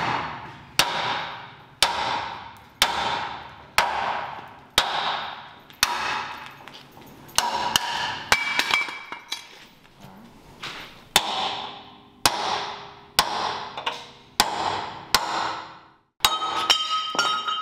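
Hand sledgehammer striking the rusty steel frame of a 1968 Ford F-100, about one blow a second, each blow ringing off the steel. The blows are knocking the old brackets and rivets off the frame.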